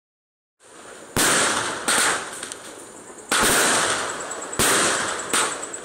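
Aerial fireworks bursting overhead: five sharp bangs at uneven intervals, each fading into a crackling hiss.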